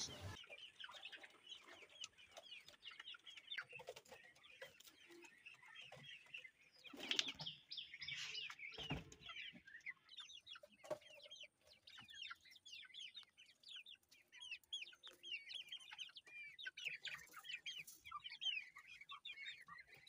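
Faint clucking and many short, high chirps from a flock of chickens and other poultry, with a couple of louder thumps about seven and nine seconds in.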